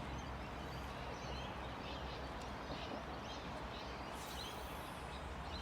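Steady outdoor background noise with faint, scattered bird chirps, and a brief soft hiss about four seconds in.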